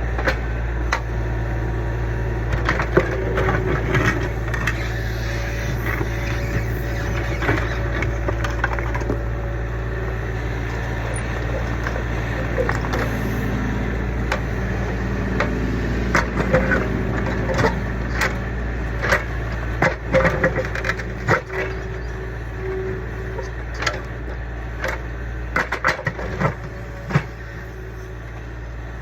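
Kubota U25 mini excavator's diesel engine running steadily while the bucket digs, with repeated knocks, scrapes and crunches of the bucket against the old footing and debris, coming more often in the second half.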